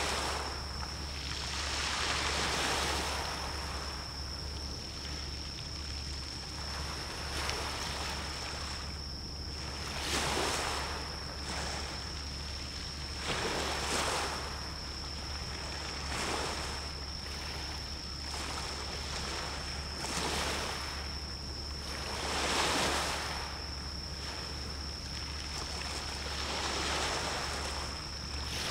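Sea waves washing in repeated swells a few seconds apart over a steady low rumble, with a thin, steady high-pitched tone.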